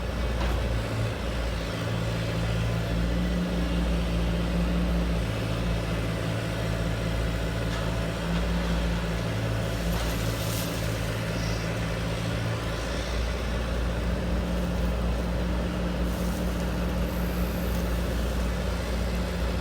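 Radio-controlled heavy construction vehicle running: a steady low engine-like drone with a hum, its tone shifting a few times as it works.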